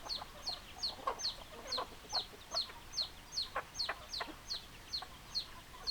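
Chickens clucking in short, scattered calls, over a thin high peep that repeats about twice a second, falling in pitch each time.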